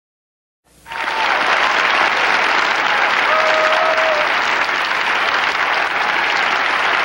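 Large arena audience applauding and cheering, starting abruptly under a second in and holding steady, with a brief held call rising above the clapping a few seconds in.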